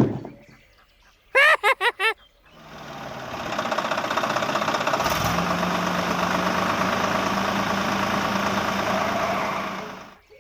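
Small motor of a homemade miniature machine running steadily with a fine rapid flutter. It builds up over about a second, picks up a steady low hum partway through, and fades away near the end. A few short high pitched sounds come just before it.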